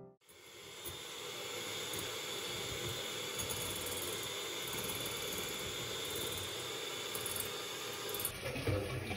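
Electric hand mixer running steadily, whipping egg whites to a foam in a glass bowl. It stops near the end, followed by light clatter of bowls and utensils.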